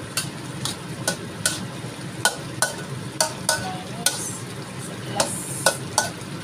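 A spatula clinking and scraping against a wok as fish pieces are stirred in a simmering tomato sauce: about a dozen sharp clinks, roughly two a second, over a steady sizzle.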